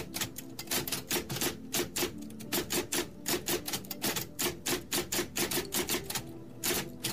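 Typewriter key-strike sound effect: rapid, irregular clacks, about four or five a second, as a caption types out. Soft background music runs underneath.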